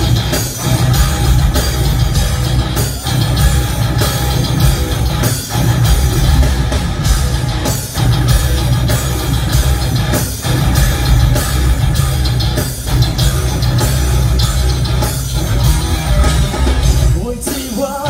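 Heavy rock band playing live through a stage PA: electric guitars, bass guitar and drum kit, loud and dense with a heavy low end.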